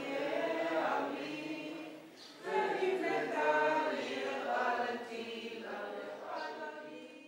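Unaccompanied choir singing slow, sustained phrases. One phrase ends about two seconds in, and the next one fades away near the end.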